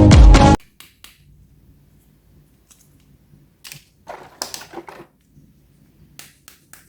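Electronic dance music that cuts off abruptly about half a second in. Then come soft clicks and, around four to five seconds in, a short burst of rustling from toys being handled.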